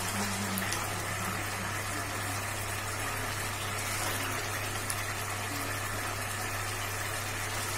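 Masala gravy sizzling and bubbling steadily in a kadai over a gas burner, an even hiss with a constant low hum beneath it.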